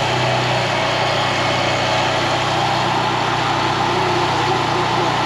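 A motor running steadily with a low hum under an even hiss, as from the hot-water decontamination equipment working on the boat.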